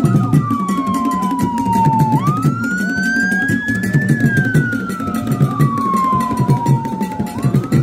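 A siren wail over music with a fast, busy drum beat. The siren's single tone falls slowly, swoops back up about two seconds in, falls again over about three seconds, and starts rising once more near the end.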